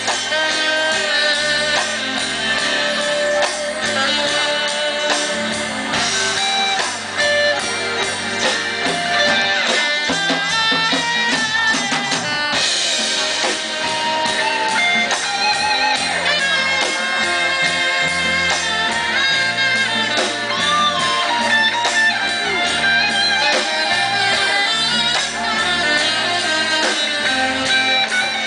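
Live rock and roll band playing through the PA, with electric guitars and drums.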